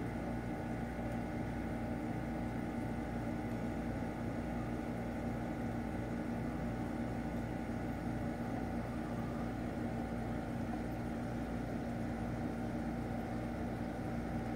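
Aquarium pump running with a steady low electrical hum and buzz, over a light hiss.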